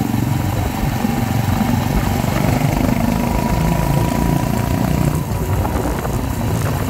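Mutt Akita 125's single-cylinder engine running steadily through a slash-cut exhaust freshly repacked with glass fibre packing, which the owner thinks has made it louder.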